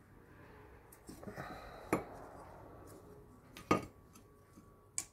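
Metal brake-hardware spring clips being pried off a Chevy Cruze front caliper bracket by hand: a few sharp metallic clicks and clinks with light scraping between them, the loudest about two seconds in and near four seconds.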